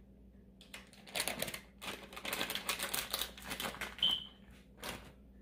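Crinkling and rustling of a plastic spice packet, handled and shaken as ground black pepper is sprinkled into the raw turkey's cavity, with a brief high squeak about four seconds in.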